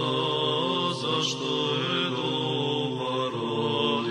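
Orthodox vocal chant as background music: voices holding long, sustained notes.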